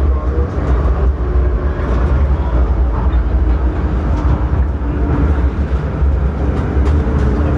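An MTR Kwun Tong Line M-train running through a tunnel, heard from inside the car: a loud, steady low rumble of wheels and running gear with a faint steady hum over it. Near the end the train is coming into a station.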